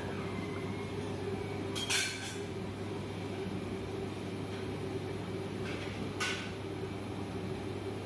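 Large gas burner running steadily under a big aluminium pot of boiling broth, with two short metallic clatters, about two seconds in and again about six seconds in.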